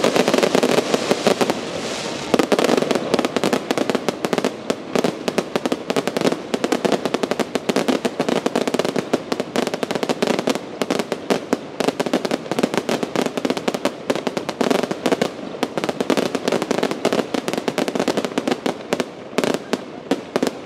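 Fireworks going off without pause: a dense, irregular stream of crackling pops over a continuous rushing noise.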